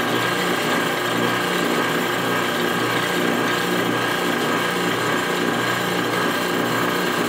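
Vacuum pump of a jewellery casting vacuum table running steadily, pulling a vacuum on a bell jar to degas liquid investment plaster in a casting flask.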